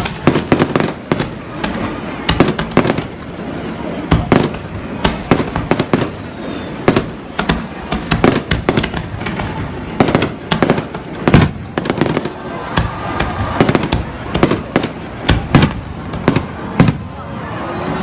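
Fireworks going off: many sharp bangs and cracks in quick, irregular succession, several a second, over a steady rumbling crackle.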